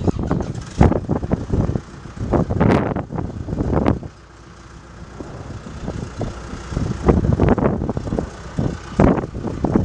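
Wind buffeting the microphone in irregular gusts, with a faint steady hum underneath during a lull about four seconds in.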